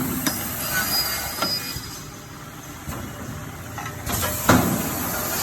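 Automatic aluminium hinge punching and cutting machine at work: compressed air hissing in two spells, with mechanical clicks and a loud clunk near the end.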